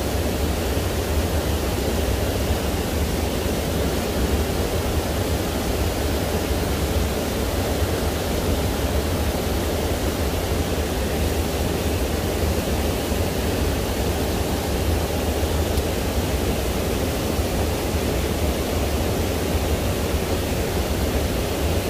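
Steady, even rush of fast-flowing river water over rocks, with a deep low rumble underneath.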